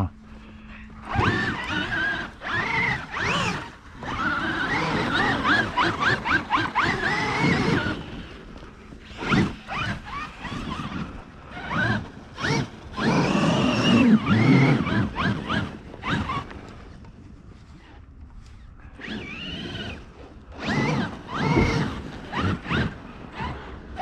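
Traxxas RC monster trucks' brushless electric motors and drivetrains whining in repeated bursts as they are throttled through snow. The whine rises and falls in pitch with each burst, with a quieter stretch between about 16 and 19 seconds.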